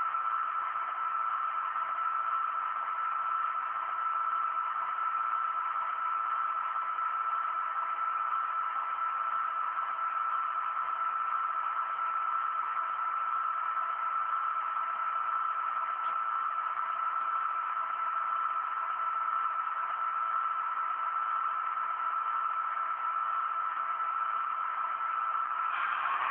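Märklin BR 218 model locomotive's mfx sound decoder playing its diesel engine sound through a tiny speaker: a steady hiss with a constant whine, a sound the owner calls dreadful. Near the end a higher tone joins in.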